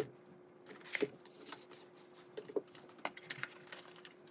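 A boxed set of metal hex keys in a holder is handled, taken out of its packaging and set down on a wooden table. A string of light clicks, taps and metallic knocks, the sharpest right at the start and about a second in, over a faint steady hum.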